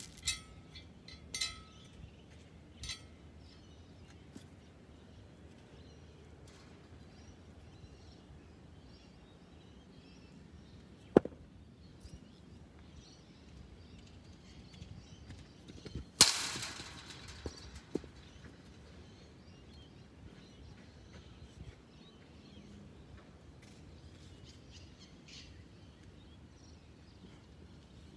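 A hard cricket ball impact in the nets: one loud crack about sixteen seconds in, followed by a short rattle, with a single sharp click some five seconds before it. Birds chirp faintly near the start.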